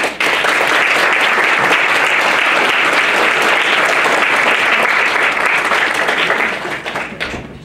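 Theatre audience applauding, starting suddenly and dying away near the end.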